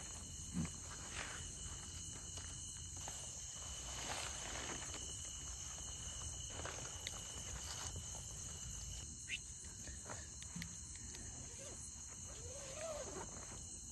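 Crickets chirring steadily, with scattered soft rustles and light knocks from tent fabric and poles being handled while tents are pitched.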